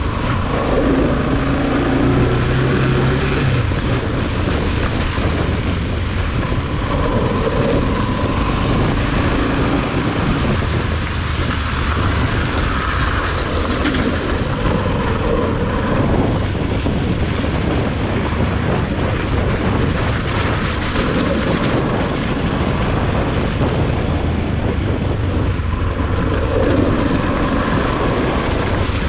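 Motorcycle engine running steadily while being ridden on a rough trail, its low note shifting now and then.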